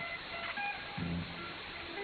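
Music from a shortwave AM pirate broadcast heard through an SDR receiver: thin, narrow-band audio with a steady hiss of static behind it. Sustained low notes drop out briefly near the start and come back about a second in.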